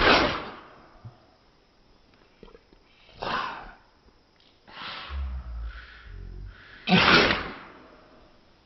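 A cat sneezing four times, each a short sharp sneeze about two seconds apart, the first and last the loudest. A low rumble runs under the third sneeze.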